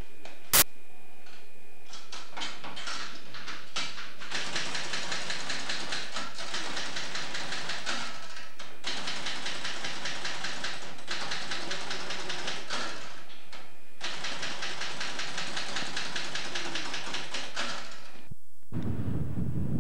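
Rapid, continuous clacking of typewriter keys, broken by a few short pauses, with one sharp click about half a second in. Near the end it cuts to wind buffeting the microphone.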